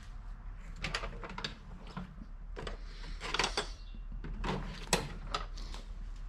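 Hand tools being handled: a series of short metal clinks and knocks, the loudest about three and a half and five seconds in, over a steady low hum.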